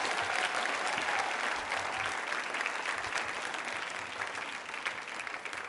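A studio audience applauding: many hands clapping together, tapering off slowly toward the end.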